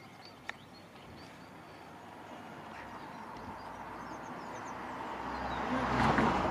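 A vehicle passing by: an even rushing noise with a low rumble that builds slowly over several seconds to its loudest near the end, then starts to fade. Faint bird chirps sound above it, and there is a single click about half a second in.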